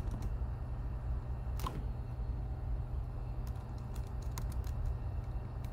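Scattered keystrokes on a computer keyboard, a few separate key clicks spread over several seconds while code is typed, over a steady low hum.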